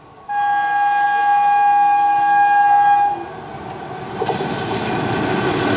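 Indian Railways WAP-6 electric locomotive sounding one long horn blast of about three seconds. After the horn stops, the noise of the approaching express train on the track grows steadily louder.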